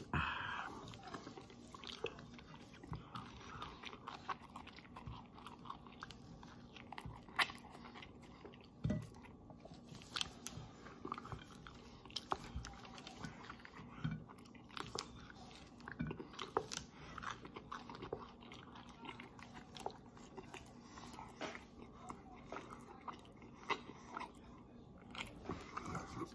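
Chewing and biting into a slice of toasted bread, with irregular soft crunches and mouth clicks.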